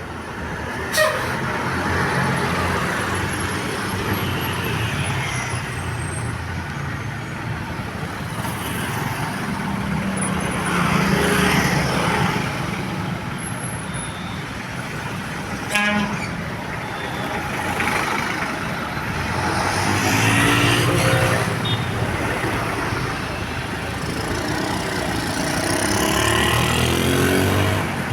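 Heavy vehicles, buses and trucks, passing one after another on a road, each pass swelling and fading. There are sharp hissing spikes about a second in and again near the middle, like air brakes, and short horn sounds.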